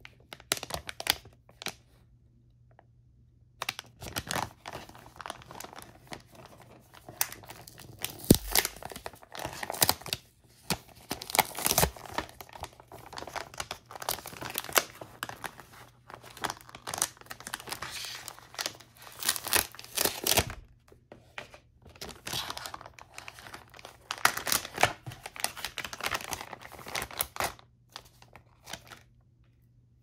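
Plastic packaging crinkling and crackling as a metallised foil pouch and an inner clear plastic bag are handled and torn open. It starts a few seconds in after a few soft clicks, continues in irregular bursts with sharp crackles, and stops near the end.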